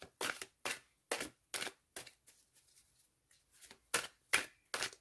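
Tarot deck being shuffled by hand, a run of crisp card slaps about two or three a second with a short pause midway.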